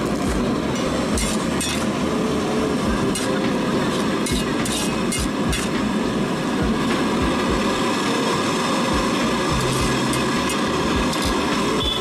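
Steel ladle clinking and scraping against a large aluminium wok as noodles in broth are stirred: a scatter of short metallic clicks over a steady, loud background rush.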